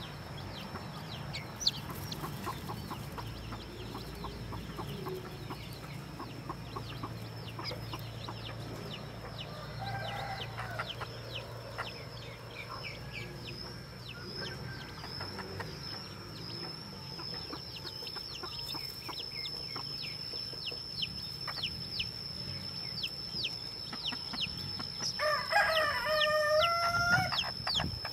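Newly hatched chicks peeping continually, many short cheeps sliding down in pitch, with a hen's soft clucking. Near the end a rooster crows for about two seconds, the loudest sound.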